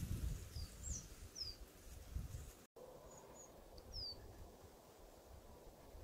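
Small bird giving short, high, downward-slurred call notes: three in quick succession in the first second and a half, and another about four seconds in. Under them is faint outdoor background noise, with a low rumble in the first half.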